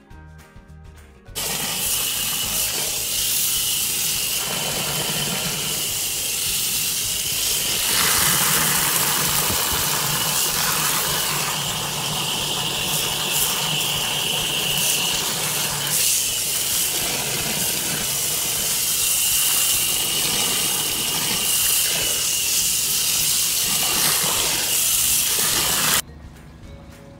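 High-pressure water jet from a hose nozzle blasting inside a drain catch basin: a loud, steady rushing hiss of spray and gushing water that shifts in strength a few times. This is the cleaning stage, washing stuck-on grime off the basin after the blockage has been cleared.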